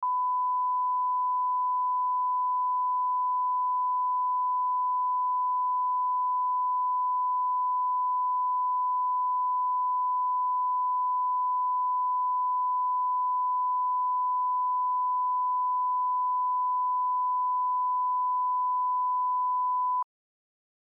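Steady 1 kHz sine line-up tone, the reference tone of a bars-and-tone leader used to set playback levels, cutting off abruptly near the end.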